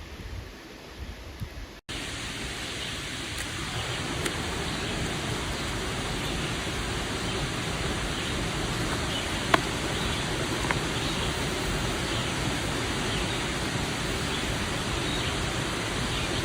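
Steady rushing of a creek's flowing water, starting abruptly about two seconds in, with a couple of faint clicks.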